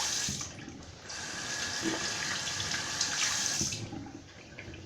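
Sink faucet running as hands are wetted under it, with a short break about half a second in, then running again for nearly three seconds before it stops.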